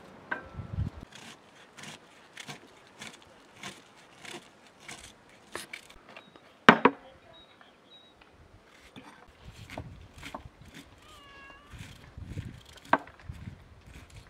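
Knife chopping red cabbage on a wooden cutting board, with steady strokes about every half second. One louder knock comes about seven seconds in, and a short pitched animal call rises and falls once, about two-thirds of the way through.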